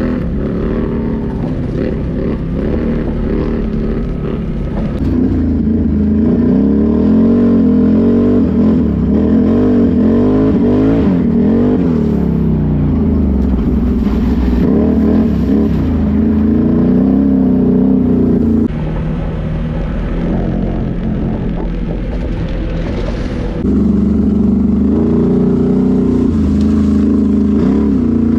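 Can-Am ATV engine on a trail ride, revs rising and falling as the throttle is worked, louder from about five seconds in. The level drops suddenly about two-thirds through, then comes back up near the end.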